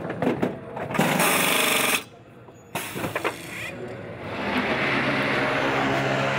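Pneumatic wheel gun rattling loudly for about a second as a centre-lock wheel nut is spun on during a tyre change, with clanks of the wheel before and after it. From about four seconds in, a steady engine hum builds.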